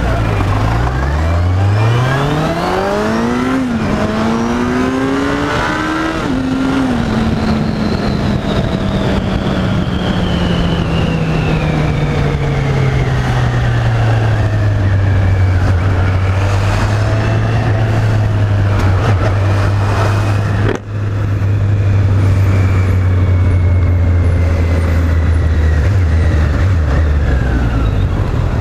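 Kawasaki Z800 inline-four engine on its stock exhaust, accelerating through two upshifts in the first seven seconds, then easing off and settling into a steady cruise. The sound drops out for an instant about two-thirds of the way through.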